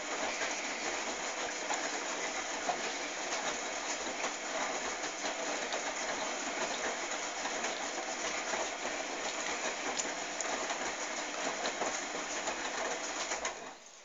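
AEG 640 front-loading washing machine in its main wash, the drum turning the wet load with a steady sloshing, swishing noise and faint ticks. It stops shortly before the end as the drum halts.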